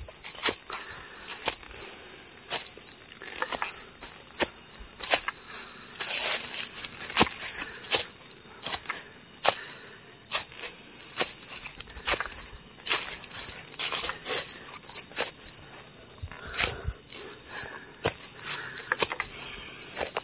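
Steady, shrill drone of insects, with irregular footsteps crunching on dry leaf litter about once a second as a man climbs a slope.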